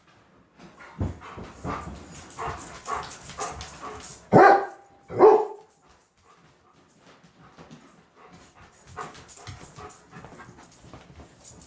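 Pet dog alert-barking at someone at the door: a run of quicker, quieter sounds, then two loud barks about four and five seconds in, followed by softer sounds.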